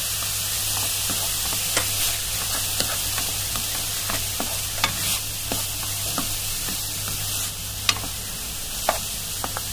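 Chopped vegetables sizzling in a frying pan as a spoon stirs them, with a steady hiss and the spoon now and then clicking and scraping against the pan.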